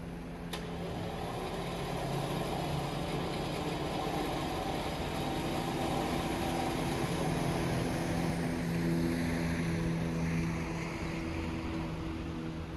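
A motor running steadily, growing louder over the first couple of seconds and then holding, with a sharp click about half a second in.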